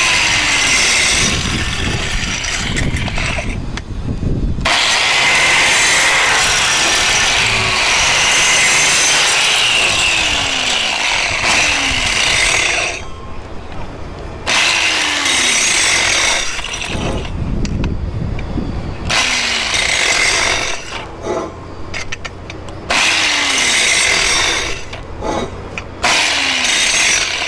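Angle grinder grinding the bevel of a steel pipe, in several bursts broken by short pauses.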